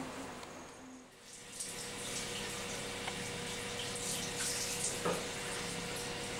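Running water from a tap, a steady splashing hiss that starts about a second and a half in, over a faint steady hum.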